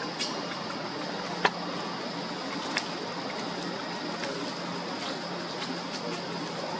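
Steady outdoor background hiss with a constant high-pitched drone and a faint low hum, broken by a few sharp clicks, the loudest about a second and a half in.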